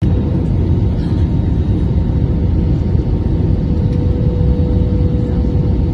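Steady low rumble of an airliner's engines and airflow heard inside the passenger cabin, with a faint steady hum over it.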